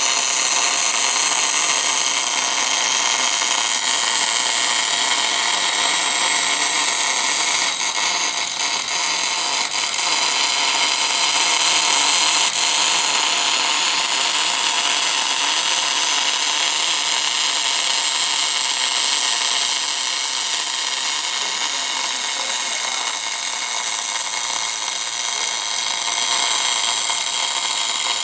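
Continuous MIG/MAG welding arc of an orbital bore-welding machine laying weld in cast iron: a steady, even sizzling hiss, with the faint hum of the machine's drive under it.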